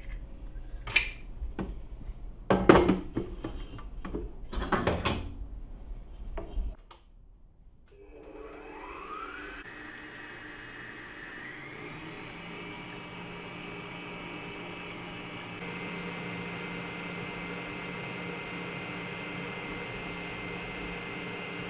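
A few sharp knocks and taps as eggs are cracked on the rim of a stainless-steel mixer bowl. About eight seconds in, an electric stand mixer starts up with a whine that rises in pitch as it comes up to speed, then runs steadily, beating the eggs, and gets a little louder about two-thirds of the way through.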